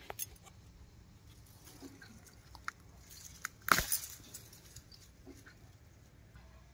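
Close handling noise from a handheld phone: light scattered clicks and rustles, with one louder rustling knock a little before four seconds in.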